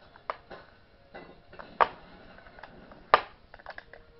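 Sharp clicks and snaps of a cardboard toy box being picked and pried open by hand: three louder snaps about a second and a half apart, with small ticks between them.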